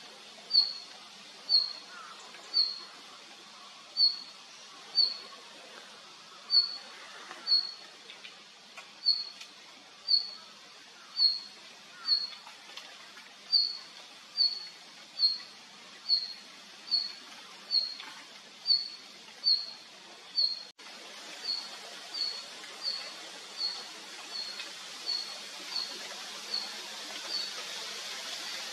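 Male red-flanked bluetail giving short, sharp, high call notes, about one a second, over and over. About two-thirds of the way through, the calls turn fainter and a steady rushing noise rises behind them.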